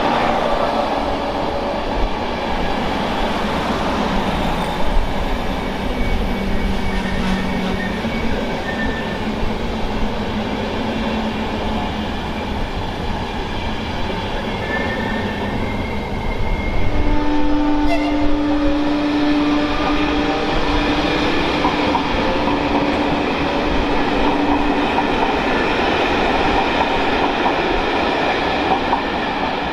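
Passenger train of coaches rolling through a station, a steady rumble of wheels on rails. A little over halfway through it gets louder, and a steady tone with short squealing glides joins in for several seconds.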